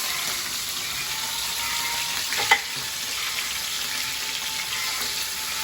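Fish frying in hot oil in a pan, a steady sizzle. About halfway through comes a single sharp click.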